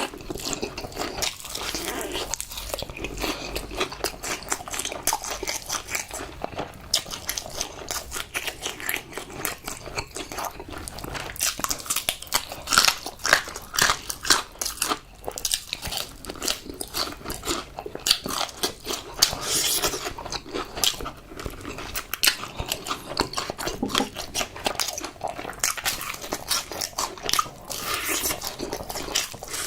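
Close-miked eating of crispy fried food: repeated crunching bites followed by crackly chewing, with louder clusters of bites recurring every several seconds.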